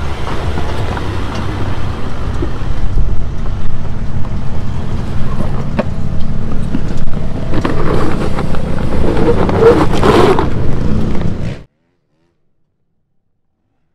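3.0-litre V6 turbodiesel of a 2020 Jeep Wrangler EcoDiesel running at a steady low crawl over rock, with scattered clicks and crunches of the tyres on the stony trail. The sound cuts off abruptly near the end.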